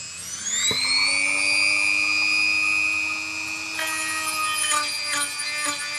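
Handheld rotary tool with a cutoff wheel, its motor speeding up to a steady high-pitched whine. About four seconds in, a gritty, rattling grind joins as the cutoff wheel bites into the soft metal cover of the transmission control unit.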